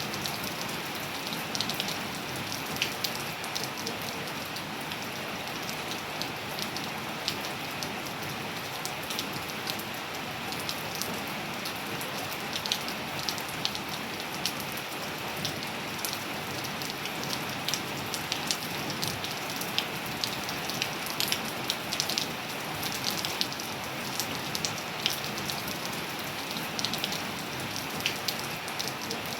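Steady rain falling on surfaces, a continuous hiss with many sharp individual drop hits scattered through it.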